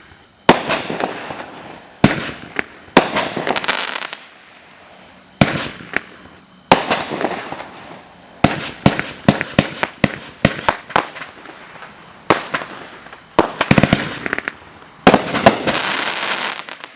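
A 44-shot 1.4G consumer fireworks cake (Pyro Packed 'Comin' In Hot') firing: sharp bangs of bursting shells in uneven volleys, each trailed by crackle and hiss, with short gaps between. It is densest near the end.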